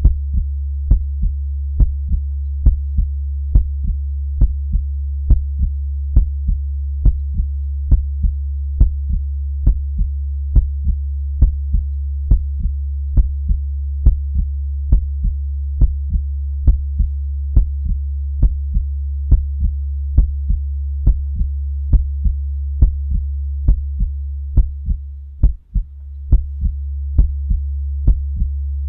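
Slow, steady heartbeat, each beat a double thump (lub-dub), a little over one beat a second, over a continuous low hum. The hum fades out and back briefly near the end while the beats go on.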